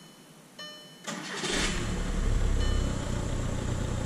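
A short electronic dashboard chime, then about a second in the starter cranks briefly and the 1.9 TDI four-cylinder turbodiesel catches and settles into a steady idle.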